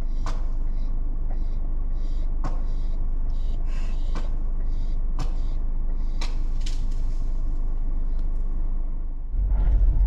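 Car engine idling, heard from inside the car, with scattered sharp cracks and snaps. Near the end the engine gets louder as the car drives off along a rough, snowy forest track.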